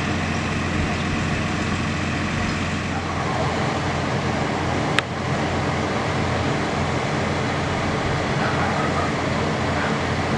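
Steady low engine hum of a utility bucket truck running, with a single sharp click about halfway through.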